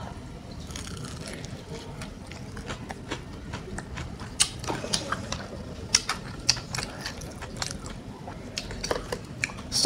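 Close-up chewing of a bite of crispy fried chicken: the coating crunches and crackles in many short, sharp crunches, fainter at first and denser from about four seconds in.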